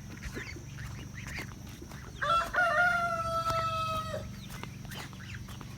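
A rooster crowing once, a single drawn-out crow of about two seconds near the middle, with chickens clucking around it.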